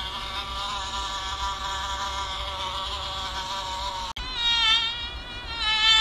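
Insect wings buzzing: a steady, even buzz, then after a sudden cut about four seconds in a louder buzzing whine that wavers in pitch.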